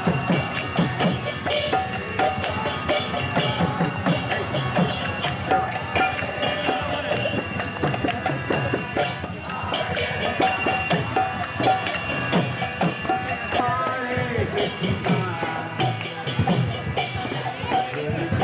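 Kirtan: voices chanting to a harmonium and a mridanga drum, with jingling hand cymbals keeping a steady, quick beat.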